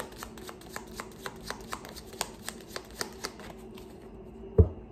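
Tarot cards being shuffled by hand: a quick run of crisp card snaps and flicks, several a second. Near the end there is one heavier thump.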